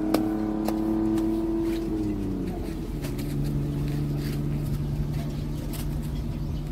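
An engine running steadily; about two seconds in its pitch drops and it settles at a lower, steady pitch.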